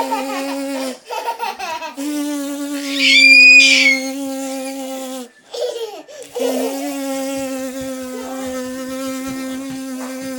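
A steady, even-pitched buzz imitating a bee, breaking off twice for a moment. A toddler squeals with laughter about three seconds in.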